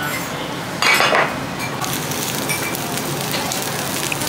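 Dishes and cutlery clattering at the table, with one louder clatter about a second in; then, from about two seconds in, slices of beef sizzling and crackling on a wire grill over hot charcoal.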